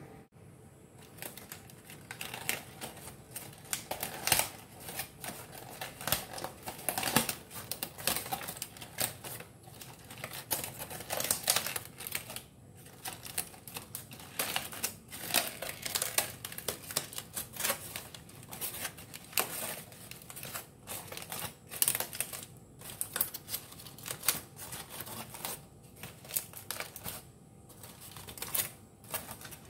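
Aluminium foil crinkling and rustling as it is peeled open and unwrapped by hand, in an irregular run of sharp crackles.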